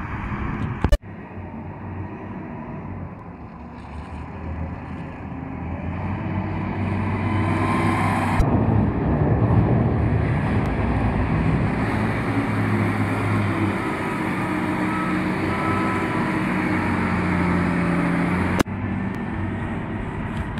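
Wheel loader's diesel engine running and revving up and down as it works, growing louder from about six seconds in. A sharp click comes about a second in and another near the end.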